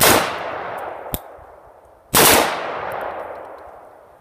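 Two single rifle shots from a Wolf A1 (Type 91) piston AR-15 upper in 5.56, about two seconds apart, each with a long echoing tail, and a sharp metallic click between them. On a full-auto lower with a heavy extra-power buffer spring, the action is not getting back far enough to fire automatically, so it fires only one shot at a time.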